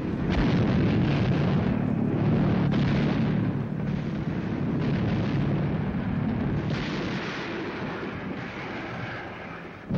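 Anti-aircraft gunfire and bursting flak shells in a dense, continuous rumble of explosions, with a few sharper reports standing out. It fades gradually toward the end.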